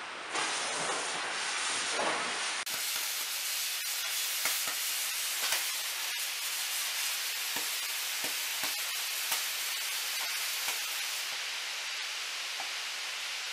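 A handheld propane torch hisses for the first two or three seconds. Then a lithium-ion battery in thermal runaway vents from the fire containment bag with a steady hiss and scattered crackling pops.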